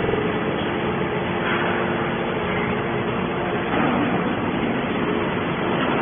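Hydraulic scrap metal baler running: a steady mechanical noise with a faint hum.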